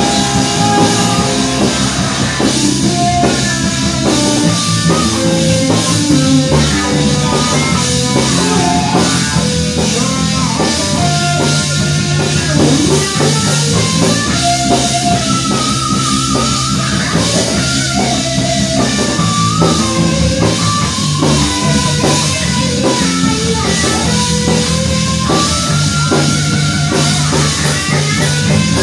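Live rock band playing an instrumental passage: electric guitar carrying the melody with wavering held notes, over electric bass and a drum kit.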